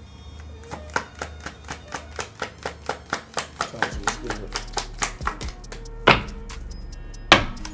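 A deck of tarot cards being shuffled by hand: a quick, even run of crisp clicks, about four or five a second, then two louder knocks near the end.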